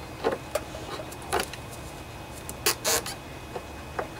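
Handling noise from gloved hands working on the engine's fuel pump and lines: scattered sharp clicks and light knocks, with a brief scraping rustle about two and three-quarter seconds in, over a steady low hum.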